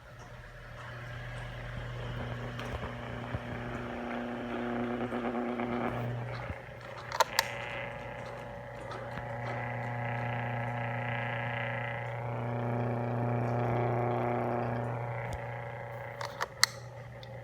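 Hanabishi Summer Wind 12-inch wall fan running with a steady buzz and rattle, a fault that has developed after two years of use. The buzz swells and eases twice, with a few sharp clicks about seven seconds in and near the end.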